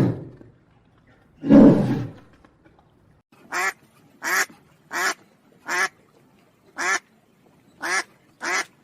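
A duck quacking seven times in a steady series of short quacks over the second half. This follows one louder, low, rough animal call about a second and a half in.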